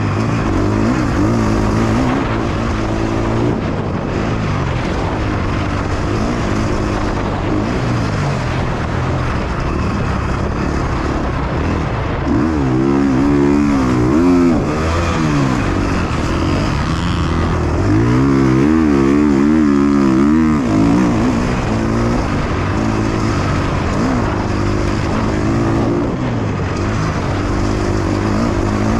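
KTM 350 XC-F single-cylinder four-stroke dirt bike engine heard from the rider's helmet, revving up and down with throttle and gear changes, with wind rush. The pitch climbs and drops repeatedly, with the hardest pulls about midway and again around two-thirds of the way through.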